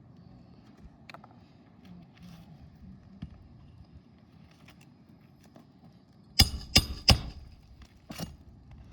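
Four sharp metallic strikes of a tool on the roof during shingle repair work: three in quick succession about six seconds in, and a fourth about a second later, each with a brief ring.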